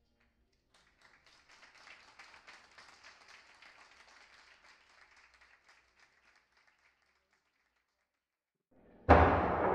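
Faint applause from a small audience, dying away by about six seconds in. About nine seconds in, loud guitar music starts abruptly.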